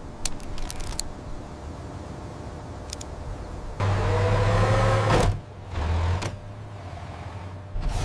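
A few faint clicks, then an electric motor whining with a low hum for about a second and a half, its pitch rising a little, and starting again briefly a moment later, like a winch or power-window motor.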